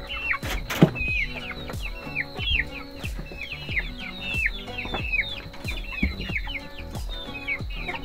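Chickens calling: a steady run of short, high-pitched, falling peeps, several a second.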